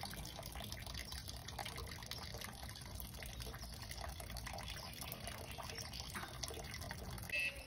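Small Chihuahua gnawing and mouthing a large bone: a steady stream of small clicks and chewing noises. A brief, sharper sound comes near the end.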